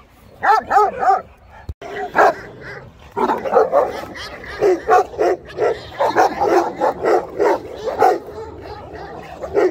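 Kangal dogs barking during a leashed face-off: a few barks right at the start, then a fast run of barks, two or three a second, from about three seconds in.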